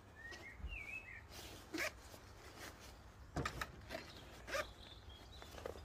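Faint rustling and a few brief clicks as the waterproof zip pocket on a textile motorcycle jacket is opened and handled. A bird chirps in the background near the start.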